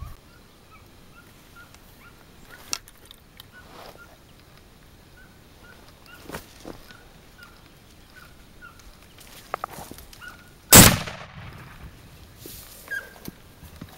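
A single loud rifle shot about eleven seconds in, with a short echoing tail. Before it, a small bird chirps repeatedly in short high notes, and a few fainter sharp cracks are heard.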